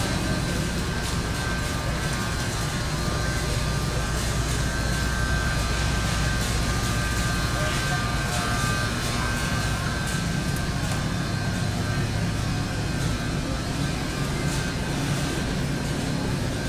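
Steady ambient noise of a large warehouse store: a low hum of refrigerated display cases and ventilation with a faint steady whine, and shoppers' voices in the background.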